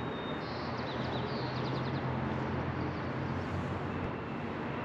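Steady hum of road traffic. A small bird chirps a quick run of high notes in the first two seconds.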